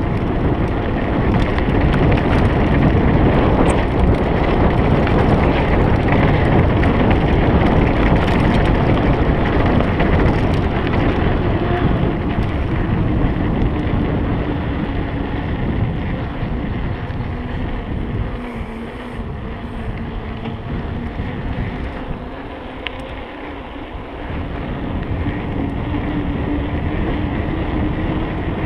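Wind buffeting the camera microphone over the rumble and rattle of a Trek Remedy 8 full-suspension mountain bike rolling fast along a dirt farm track. The noise eases off for a few seconds past the middle, then builds again.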